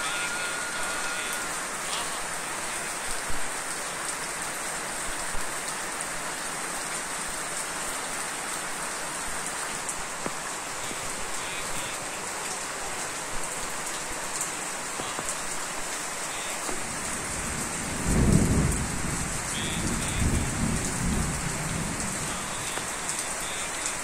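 Steady heavy rain falling. About eighteen seconds in, a low rumble of thunder rolls for a few seconds.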